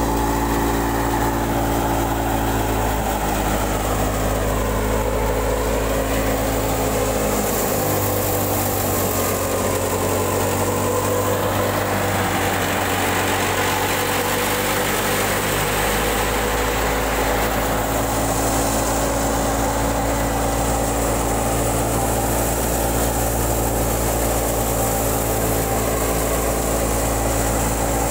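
Batala wheat thresher running steadily under load, a continuous engine and machinery drone as it threshes wheat and blows out the chaff. The deepest part of the drone drops away for several seconds midway, then returns.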